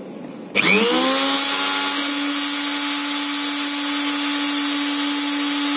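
Philips HR2223 blender's bare brushed motor switched on at speed 3: it starts about half a second in, winds up quickly in pitch and settles into a steady, loud, high whine. It is running at full speed on its freshly rewound armature, the earlier shorted winding that made it spin weakly now cured.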